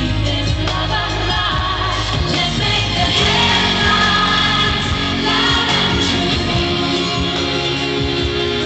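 Live pop concert: a female vocal group singing over an amplified band backing, loud and continuous, heard from the crowd in an arena.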